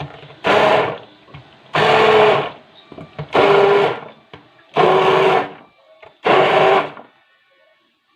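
Electric blender run in five short pulses, about a second and a half apart, grinding lemons with sugar into lemon concentrate. The motor stops near the end.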